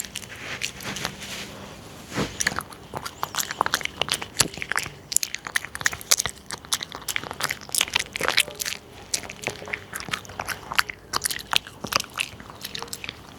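Dog chewing and crunching dry treats, recorded close up: rapid, irregular crisp crunches, several a second.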